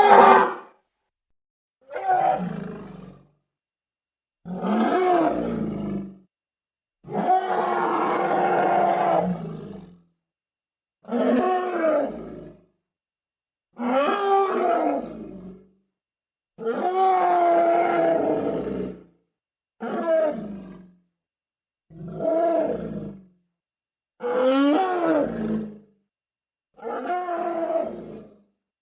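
A string of elephant call sound effects: about eleven separate roaring calls of one to three seconds each, with short silences between them. Each call has a pitch that bends up and down, and the first is the loudest.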